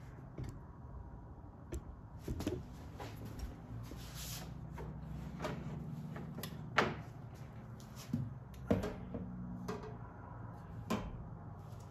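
Scattered clicks and knocks of objects being handled, moved and set down on a workbench, with a few sharper knocks in the second half, over a low steady hum.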